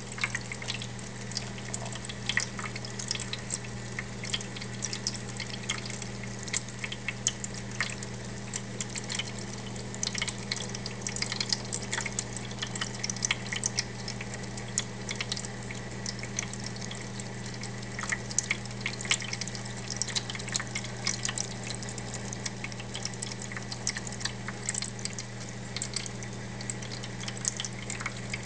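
Electric pet water fountain running: the pump's steady low hum under the trickle of its stream falling into the bowl, with frequent irregular small splashes and ticks as a cat laps at the falling water.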